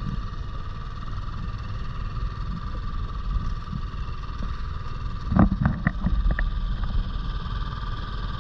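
Boat engine running steadily with a low rumble and a steady whine, with a few knocks about five and a half seconds in.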